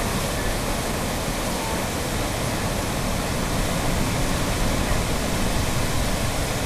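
Heavy ocean surf surging and churning against granite ledges and into a narrow rock chasm, a steady rush of white water.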